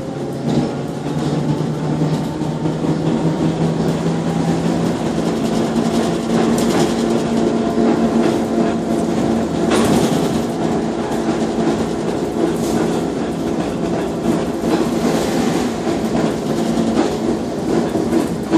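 Inside a moving trolleybus: the electric traction motor whines in a few steady tones over road rumble, while the body rattles and knocks on the bumps. There is a sharper knock about ten seconds in.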